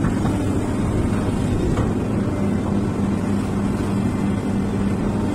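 XCMG XE215C hydraulic excavator's diesel engine running at a steady working speed, a constant low hum, as the machine swings its boom and bucket.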